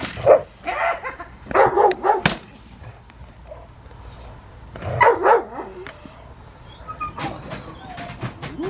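German Shepherd barking in short bursts at a helper's wicker bite sleeve during protection work, with a few sharp knocks.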